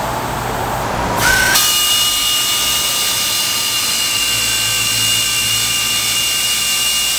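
Pneumatic air tool on a shop air hose spins up about a second in, then runs at full speed with a steady high-pitched whine.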